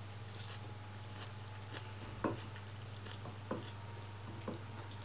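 Quiet eating sounds: a person chewing lettuce and lifting noodles with wooden chopsticks from a ceramic bowl, giving a few soft, separate clicks and knocks over a low steady hum.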